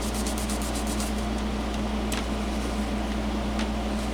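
Heat gun running steadily with a low hum and airy hiss, warming a circuit board to melt wax. In the first second there are quick rubbing strokes, a shop towel wiping the melted wax off the board.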